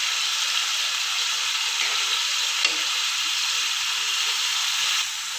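Mixed vegetables sizzling as they fry in oil and masala in a pot, with a spoon stirring freshly added shredded cabbage into them. It is a steady hiss that eases slightly near the end.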